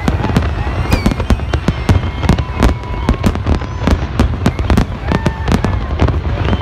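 Fireworks display: a rapid, unbroken string of bangs and crackles over a continuous low rumble.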